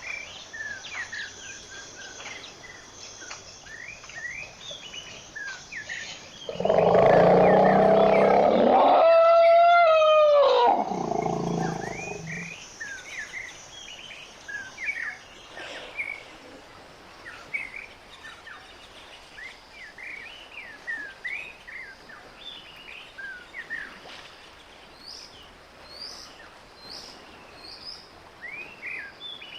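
An elephant trumpets once, starting about six seconds in and lasting about six seconds: a rough blare that turns into a pitched blast falling at its end. Birds chirp throughout.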